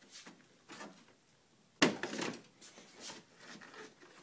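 Plastic retaining clips on a Jeep Liberty's front grille being pulled up by hand. There is a sharp click a little under two seconds in, among fainter clicks and rubbing of the plastic grille.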